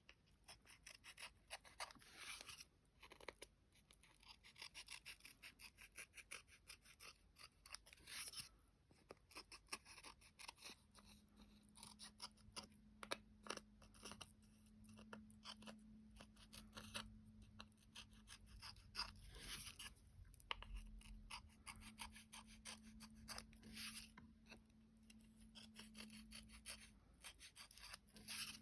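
Small scissors snipping in many quick, faint cuts, trimming excess napkin paper from the edge of a decoupaged ornament.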